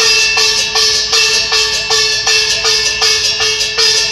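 Gong-and-cymbal percussion accompanying Hokkien glove-puppet opera, struck in a steady beat about two and a half times a second, each stroke ringing on.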